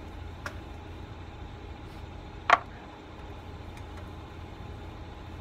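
Metal hand tool working at a truck's wheel hub: a faint click about half a second in, then one sharp, ringing metallic clink about two and a half seconds in. A steady low hum runs underneath.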